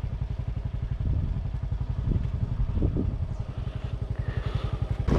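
Motorcycle engine running at low speed, a steady low pulsing drone heard from on the bike.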